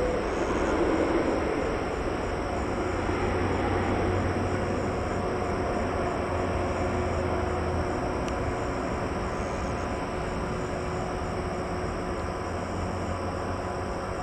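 Jet airliner engine noise: a steady rush that slowly fades.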